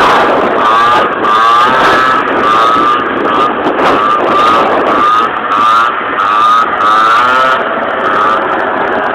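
A high-revving motorbike engine, its pitch rising and falling over and over as the throttle is worked through wheelie stunts.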